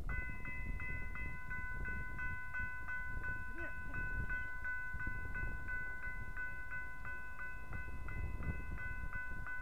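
Railroad crossing warning bell, a newly installed signal with a different sound, starting suddenly and ringing steadily at a little under three strokes a second. Each stroke is a bright ding of several tones over a steady lower tone. It warns of an approaching train.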